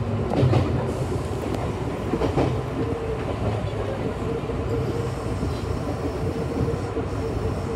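Kintetsu electric train running along the track, heard from inside the front of the car: a steady rumble of wheels on rail with a few clacks over rail joints in the first couple of seconds. A steady whine joins in about two and a half seconds in and holds.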